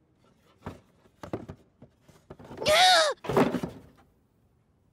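Soft wooden knocks and thunks from a wooden box, with a short high-pitched, wavering sound about halfway through, followed by a few more knocks.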